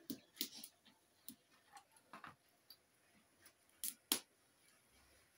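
Serving spoon clicking and scraping against a cooking pot and plastic plates as cooked greens are dished out. A scatter of light, irregular clicks, with the two loudest close together about four seconds in.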